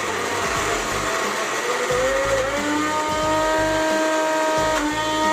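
Electric mixer grinder running, grinding raw chicken with butter into a paste; its motor whine rises in pitch about two seconds in and then holds steady.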